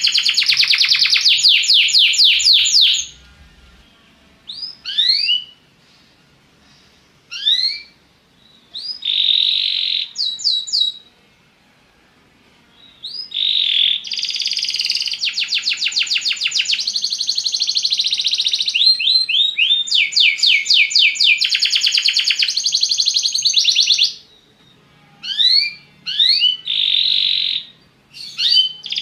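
Belgian canary singing: long runs of fast, rapidly repeated trill notes alternating with short rising whistled notes, in phrases of several seconds separated by brief pauses.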